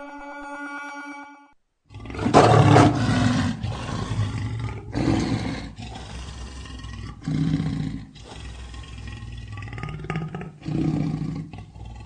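Lion roaring: a loud roar starts about two seconds in, followed by further roars every two to three seconds with low rumbling between them.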